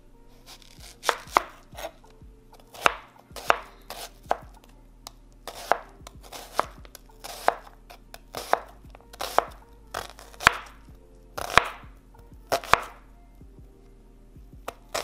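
Kitchen knife slicing a white onion on a cutting board, each cut ending in a sharp knock of the blade on the board, at an uneven pace of about one or two cuts a second.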